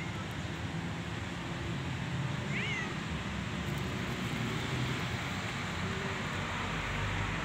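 A kitten gives one short, high meow about two and a half seconds in, over a steady outdoor background rumble and hiss.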